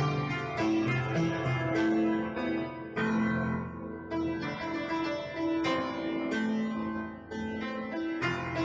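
Piano music: a slow piece of held chords and melody notes, with new notes struck every half second to a second.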